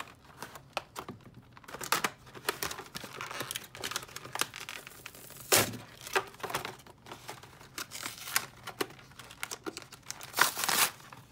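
Scissors cutting into a cardboard-and-plastic calculator package, then the packaging torn and crinkled apart by hand in irregular sharp rips and crackles, the loudest rips about halfway through and near the end.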